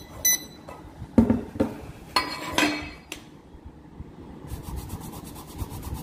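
Hands handling a plastic jar and a handheld inkjet printer on a metal positioning plate: a short high tone just after the start, a few sharp knocks, and a brief squeal of plastic scraping. In the last second and a half comes a fast, even ticking, about ten a second, as the jar is rubbed and turned in the hands.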